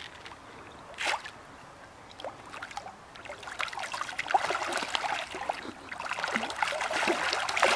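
Carp splashing and slurping at the water's surface as a shoal feeds on freshly thrown bait. It starts with a few scattered splashes and builds into a dense, louder churning over the last few seconds.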